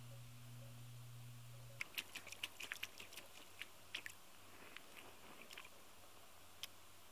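Fine gravel crunching underfoot as shoes shift on it: a quick, irregular run of small crunches, then a single one near the end. Before that, a faint steady low hum stops about two seconds in.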